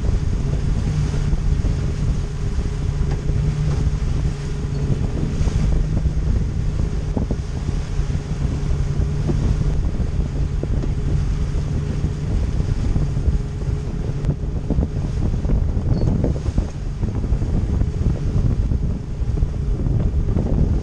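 Boat's outboard motor running with a steady hum, with wind buffeting the microphone and water rushing past the hull.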